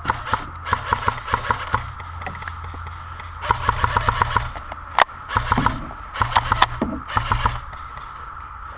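Airsoft guns firing in three bursts of rapid, evenly spaced shots, with a single sharp crack about five seconds in.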